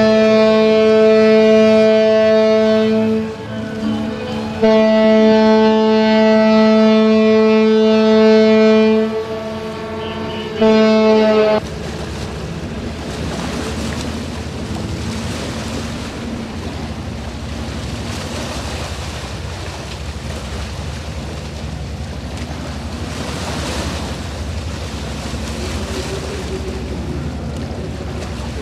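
Ship's horn sounding three blasts, two long and one short, one steady low note, followed by a steady wash of water and wind.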